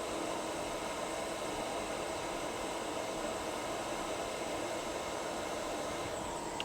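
Hot air rework station blowing with a steady hiss while heating a chip on the phone's logic board.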